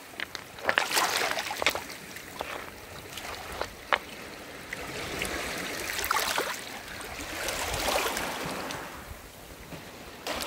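Small sea waves washing in and out over a shallow pebble shore, the wash rising and falling in a few swells, with a few sharp clicks.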